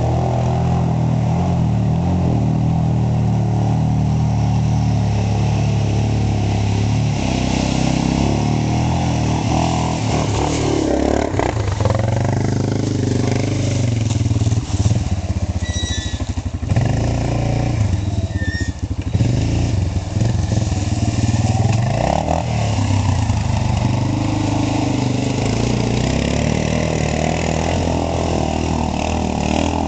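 ATV engine running continuously, its pitch rising and falling as the throttle is opened and closed several times, with a choppier, uneven stretch about halfway through.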